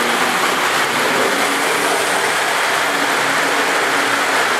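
Several model trains running at once on a layout: a steady, loud rushing whir of metal wheels on track and small electric motors.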